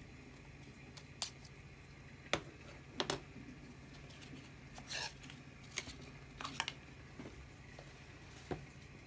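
Sharp clicks and light knocks, about eight of them at irregular intervals with two close together near the start, from a Zippo-style lighter and its box being handled, over a steady low hum.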